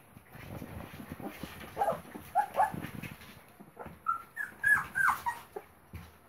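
Labrador Retriever puppies, about 25 days old, whimpering and squeaking in short high calls as they jostle to nurse, a few about two seconds in and a cluster of short falling squeals in the second half, over soft scuffling.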